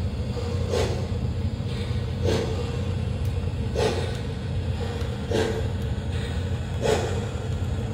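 Lionel O gauge model train rolling along the track with a steady low rumble and a regular clack about every second and a half.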